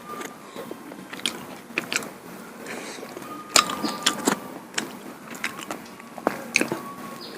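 Close-miked eating sounds: chewing and mouth smacks with irregular sharp clicks.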